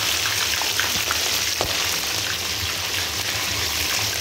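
Chicken leg pieces deep-frying in hot oil in an iron karahi: a steady sizzle with many small scattered pops.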